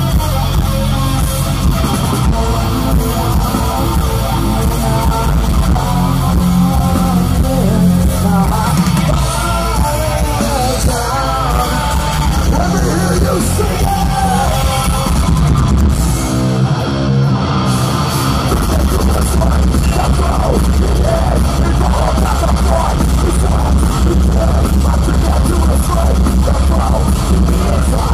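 Heavy metal band playing live at high volume, distorted guitars and drums without vocals, as heard from the crowd. About halfway through the low end drops out for a moment, then the full band comes back in.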